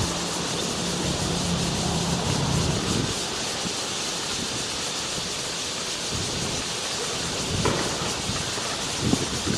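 Steady outdoor background noise with a low hum for the first three seconds, then two brief knocks near the end.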